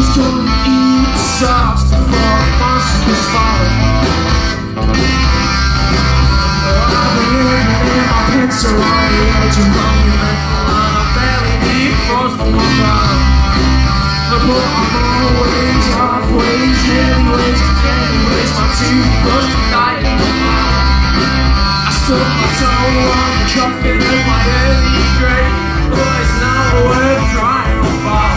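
Live rock band playing loud: electric guitar, bass guitar and drums, with a singer's voice at times.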